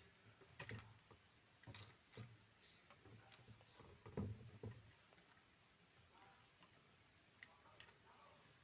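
Faint, scattered clicks and taps as small cable connectors are handled and slotted into an ATM card reader's circuit board, most of them in the first five seconds.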